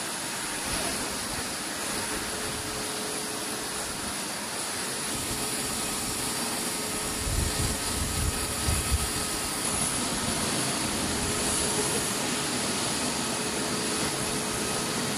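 Steady jet-engine noise from aircraft on a flight line, with a thin high whine running over it. A few low rumbling bumps come about halfway through.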